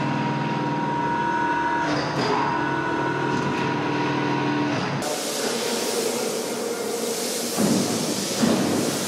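Heavy-industry shop machinery running: a steady mechanical hum with several tones for about five seconds, then an abrupt change to a loud, even hiss with a couple of knocks near the end.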